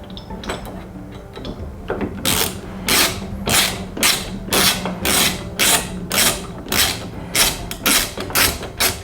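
Screwdriver backing out the screws of a door handle, with a repeated rasping stroke about twice a second that starts about two seconds in.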